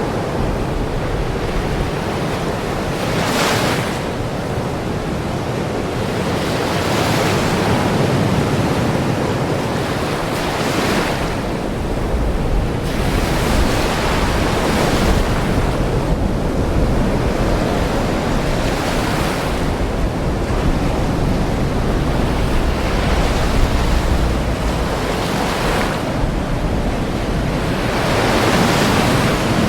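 Ocean waves breaking on a shore: a continuous wash of surf with a fresh wave swelling up every three to four seconds.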